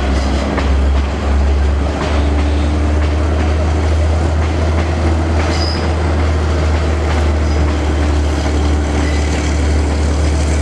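Train passing, a steady heavy rumble of wheels and carriages, with a brief high wheel squeal about five and a half seconds in.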